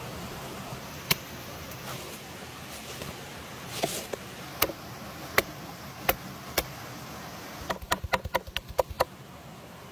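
A cleaver chopping raw chicken on a wooden board: a quick run of about ten chops near the end. Before it come several single sharp knife strikes about half a second to a second apart, over a steady rushing background noise.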